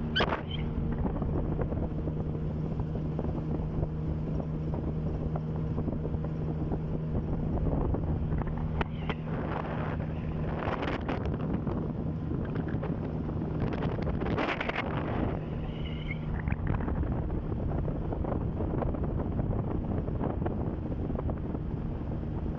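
Small boat's outboard motor running at a steady pitch, with strong wind buffeting the microphone and several splashes of waves against the hull near the middle.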